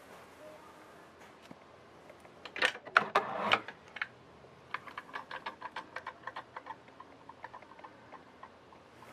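A short clatter of sharp knocks and rattles, then a run of light, evenly spaced ticks, about five a second, that thin out and fade.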